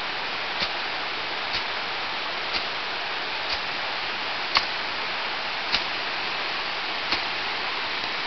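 Creek water rushing over small rapids, a steady hiss, with a sharp click about once a second; the clicks are the loudest sounds.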